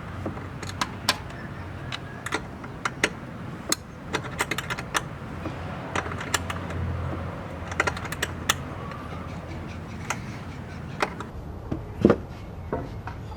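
Spanner clicking and clinking on metal while the fitting on a new aftermarket intake pipe is tightened: irregular sharp clicks, about one or two a second, over a faint low hum.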